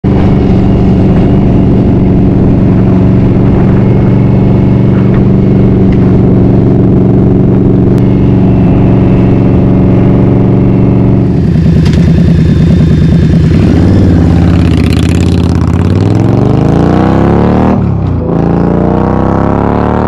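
Indian Scout Rogue's liquid-cooled V-twin through Bassani slip-on mufflers, stripped of their insulation with the baffles left in, running loud at a steady speed for about the first eleven seconds. Then the revs climb hard, drop sharply once near the end and climb again.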